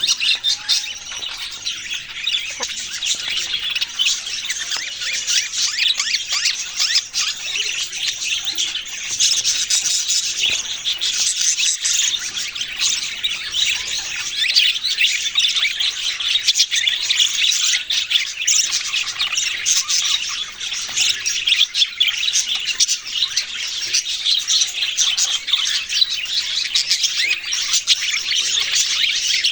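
A flock of small pet birds chirping and squawking all at once in a dense, unbroken chatter.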